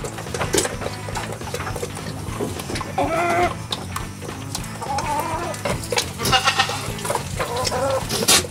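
Goats bleating several times, with a hen clucking and sharp knocks in between, one loud knock near the end.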